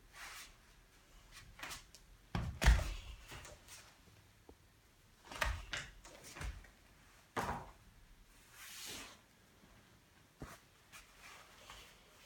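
Thumps and scuffs of a gymnast's body dropping onto and sliding across a foam floor mat, a handful of separate knocks with the loudest about two and a half seconds in, and a brief rustle near the end.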